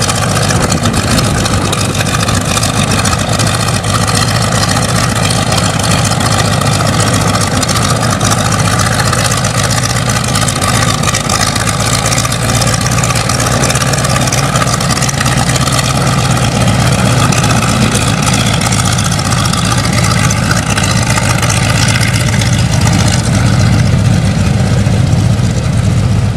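Propeller aircraft's piston engine running steadily at close range, a loud, even drone with no change in pitch.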